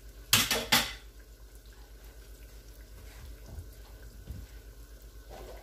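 Plantain turnovers frying in a pan of hot oil, a steady faint sizzle. Two brief loud bursts of noise come about half a second in.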